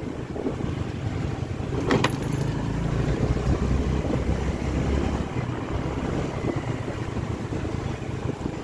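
Honda scooter's small single-cylinder four-stroke engine running at riding speed, with wind buffeting the phone's microphone. A brief sharp clack about two seconds in.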